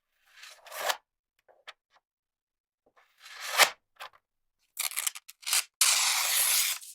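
Office stationery sounds: two short rasps that swell and cut off, a few light clicks, then a run of quick strokes and a steady rasp lasting about a second near the end.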